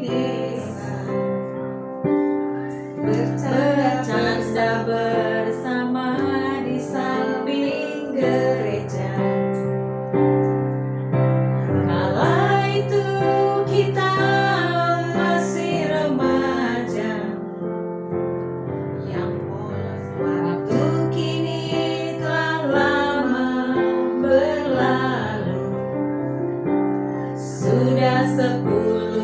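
Women singing a song together to a digital piano accompaniment of held chords.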